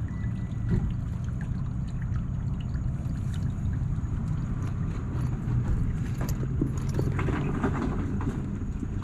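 A motor running steadily with a low, even drone under a rushing noise, with a few light knocks and clicks in the second half.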